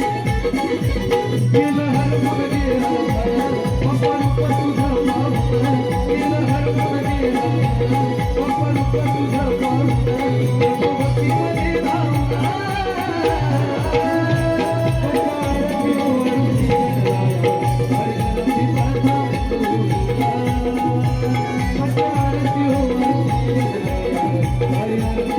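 Instrumental interlude of Konkani naman devotional folk music: a hand drum keeps a steady beat under melodic instruments, with one high note held throughout.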